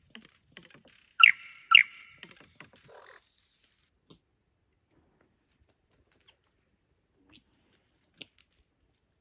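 Superb lyrebird singing: a run of quick clicking notes with two loud, sharp calls about a second in, breaking off after about three seconds, then only a few faint scattered ticks.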